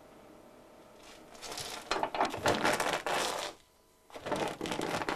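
Grain being crushed into coarse groats: a gritty crunching noise in two spells, starting about a second and a half in, with a brief pause about two-thirds of the way through.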